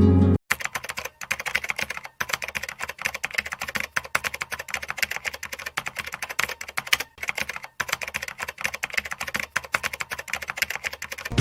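Computer keyboard typing: a fast, dense run of key clicks with a few brief pauses.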